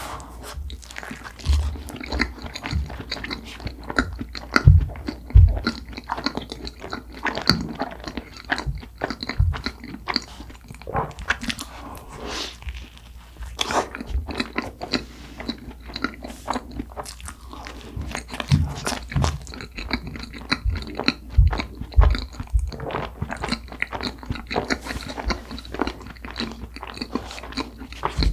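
Close-miked eating sounds of soft cream-filled red bean buns: bites, then steady wet chewing with irregular mouth clicks and smacks. A few short low thumps come about five seconds in and again past twenty seconds.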